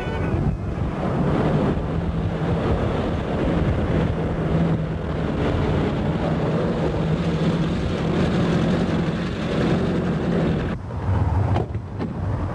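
A motor vehicle running steadily with a low engine hum, with wind noise on the microphone.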